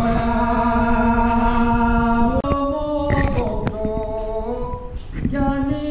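Assamese naam-kirtan devotional chanting: long held sung notes. The singing breaks off sharply about two and a half seconds in, then goes on in shorter phrases.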